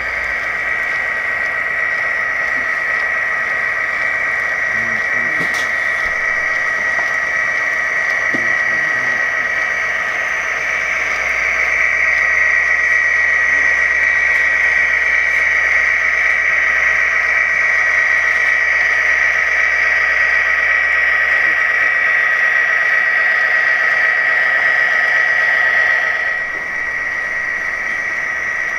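Walthers HO-scale EMD SD60 model locomotive's onboard sound decoder playing a diesel locomotive running, heard as a steady high whine over a low hum through its small speaker. It grows louder about eleven seconds in as the locomotive comes close, then drops back near the end.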